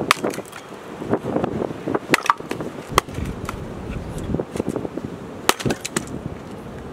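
Hand axe splitting firewood on a wooden chopping block: several sharp chopping strikes a second or two apart, with split pieces of wood knocking as they fall.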